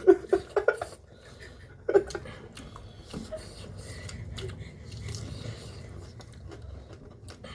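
A person's voice briefly at the start and again about two seconds in, then quiet eating sounds with scattered small clicks and mouth noises.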